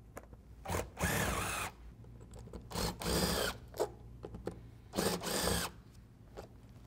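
Makita 18V cordless impact driver spinning nuts down onto the bolts of a conveyor belt splice fastener, in three short runs of about half a second each with brief blips between. The nuts are run down just far enough to lay the top plates flat, not yet tightened to compress them.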